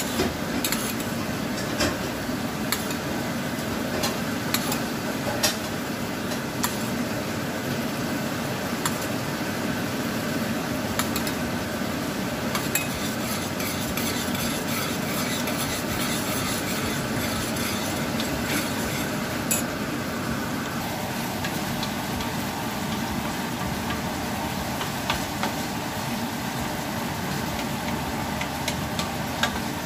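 A thickening glaze boiling in a stainless saucepan, stirred with a metal spoon that clicks and scrapes against the pan. About two-thirds of the way through, this changes to chopped bacon frying in a frying pan as it is stirred, with fewer clicks.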